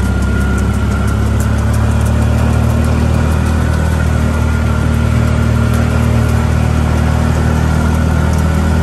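Engine of a slow-moving motor vehicle running steadily at low speed, a constant low hum, with faint crackles over it.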